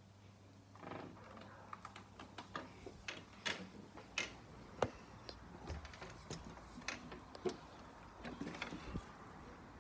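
Faint, irregular light clicks, taps and rustles close to the microphone, starting about a second in: small objects being handled.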